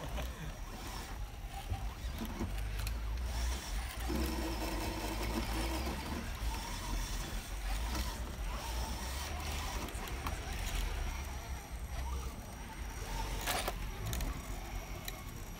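Electric motor and gears of a radio-controlled scale crawler truck whining as it crawls over logs, over a constant low rumble, with a sharp knock near the end.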